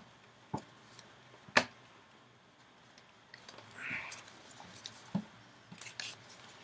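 Yu-Gi-Oh trading cards being handled on a table: a few sharp taps and clicks, the loudest about a second and a half in, and a brief soft rustle of card stock about four seconds in.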